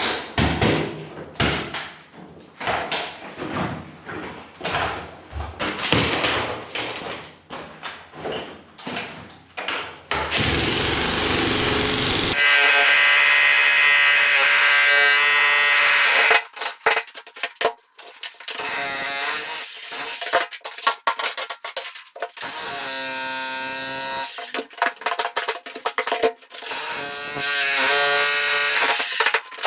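Electric power tools working on old, very hard concrete. Irregular knocks come for about the first ten seconds, then a tool motor runs in stretches with its pitch shifting and short breaks between.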